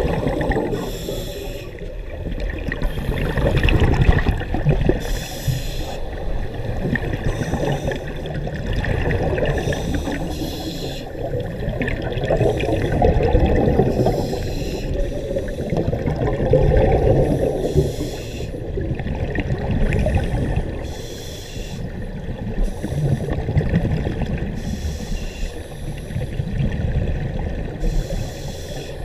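Scuba regulator breathing heard underwater, muffled through a camera housing: bursts of gurgling exhaled bubbles every couple of seconds over a steady low rush of water.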